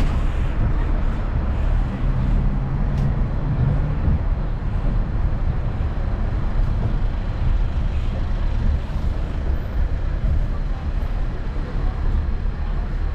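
Steady low rumble of a sightseeing road train in motion, heard from aboard: engine and tyre noise on the street, with a low engine hum most noticeable in the first few seconds.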